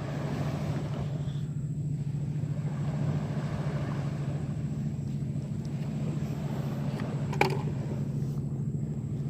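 A steady low motor hum at a fixed pitch over a light hiss, with one short click about seven seconds in.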